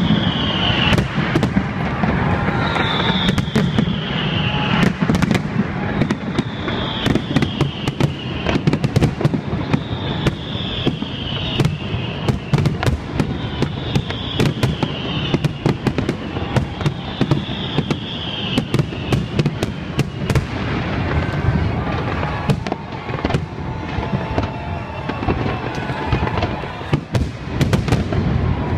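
Large fireworks display: a dense, continuous run of bangs and crackling over a low rumble. A high falling whistle repeats about every two seconds through the first two-thirds.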